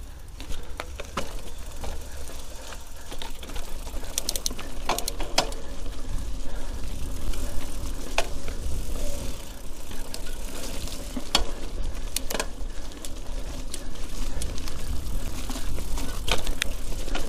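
Mountain bike rolling over a rough trail, heard through an action camera's microphone: the chain and frame rattle, with sharp knocks from bumps at irregular intervals over a steady low rumble of wind and vibration on the microphone.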